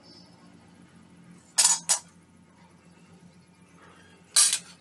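Hand hammer striking a steel machete blade, cut from a chainsaw guide bar, on an anvil, each blow a sharp metallic clang. Two quick strikes come about a second and a half in, and one more near the end.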